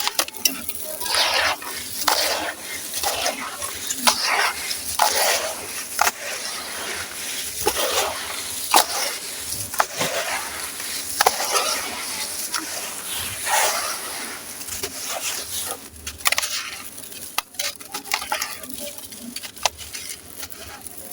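Gritty sand-cement chunks being crushed and crumbled, a run of crunchy, gritty crumbles about once a second with sharp cracks among them.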